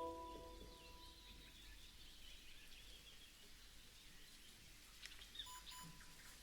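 The last handpan note rings out and fades over the first second, leaving faint birdsong chirps over quiet outdoor ambience. Near the end come a couple of faint clicks and a short double beep.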